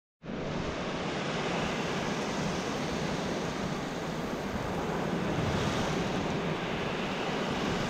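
Ocean surf breaking and washing up over the sand at the water's edge: a steady rush of waves.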